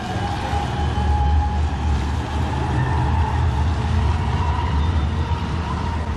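City tram passing close by: a steady low rumble that builds over the first second and holds, with a thin whine running above it.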